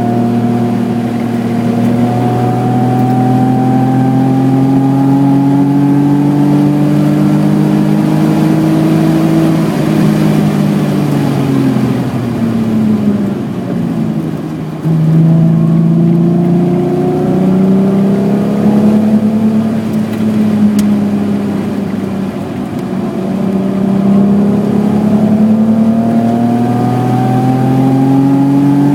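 BMW E28's 3.6-litre straight-six engine pulling steadily up through the revs, then falling off from about ten seconds in as the car slows. After a brief drop in sound around fifteen seconds in, it pulls again, climbing in long sweeps through the rest.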